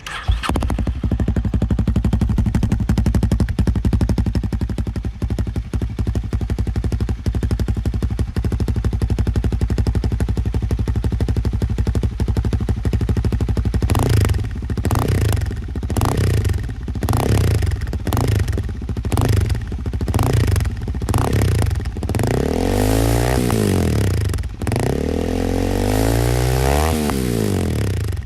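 Honda CL300's single-cylinder engine running through a Yoshimura exhaust: a steady idle, then short throttle blips about once a second from about halfway, and near the end two longer revs that rise and fall in pitch.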